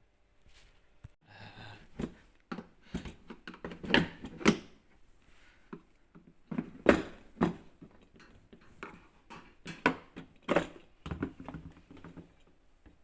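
A run of irregular knocks and clicks, the loudest around four to four and a half seconds in and again near seven and ten seconds.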